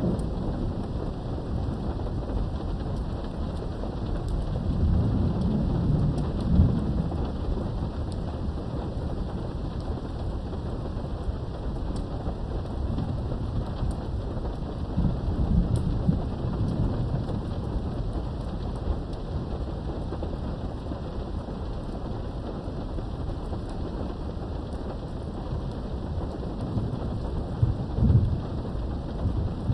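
Steady rain falling, with low rolls of thunder rumbling in three times: a few seconds in, around the middle, and near the end.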